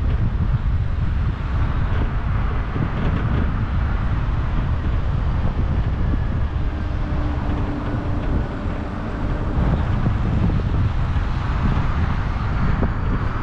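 A car driving at steady speed, with continuous road rumble and wind noise. A faint steady hum comes in for a few seconds in the middle.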